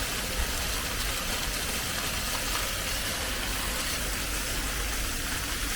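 Model volcano erupting: a steady gushing hiss of spray or mist with a low rumble beneath.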